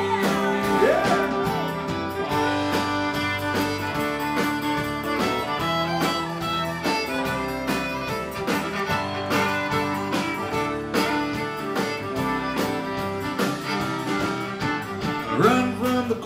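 Live country band playing an instrumental break with no singing: a fiddle leads over strummed acoustic guitar and a steady drum beat.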